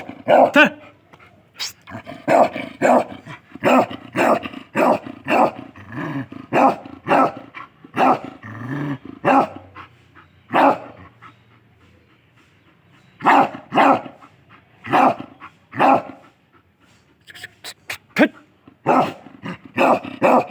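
A dog barking repeatedly in bouts of several barks, about two a second, with short pauses between the bouts.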